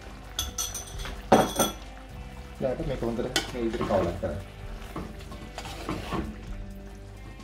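Wooden spoon stirring thick young jackfruit curry in a clay pot, scraping and clacking against the pot. A few sharp clacks come in the first two seconds, then steadier scraping and stirring.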